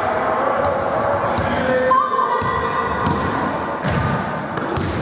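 Sharp knocks of a ball being bounced, thrown and caught on a hard sports-hall floor, several times, mixed with young people's shouts and calls, all echoing in the large hall.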